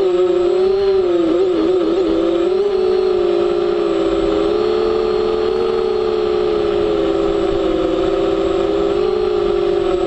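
FPV drone's electric motors and propellers, heard through its onboard camera: a steady buzzing whine that wavers in pitch with throttle, wobbling over the first couple of seconds and then holding fairly even.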